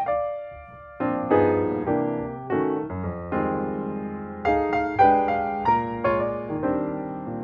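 Background piano music: chords and a melody, each note struck and decaying, with a brief lull about half a second to a second in.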